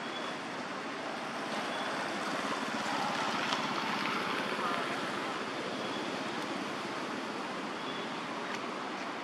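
Steady rushing outdoor background noise, swelling a little a few seconds in, with a few faint short high peeps.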